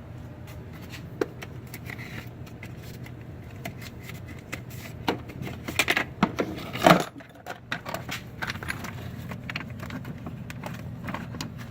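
Small hard objects being handled at a workbench: scattered clicks and light clatter, with a louder clattering scrape about seven seconds in, over a steady low hum.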